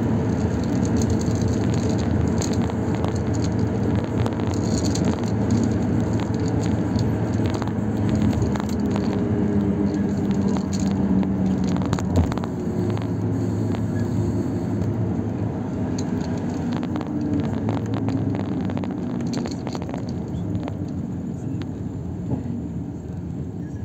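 Road and engine noise of a moving vehicle, heard from the vehicle itself: a steady rumble with a low engine drone and scattered light rattles, gradually quieter over the second half.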